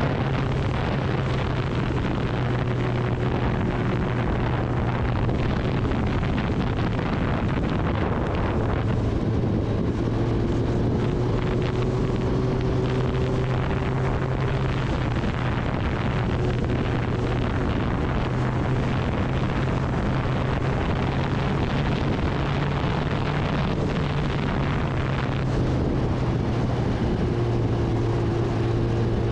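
Kawasaki Ninja ZX-10R's inline-four engine running at a steady cruise, its pitch rising and dipping only slightly, with wind rushing over the microphone.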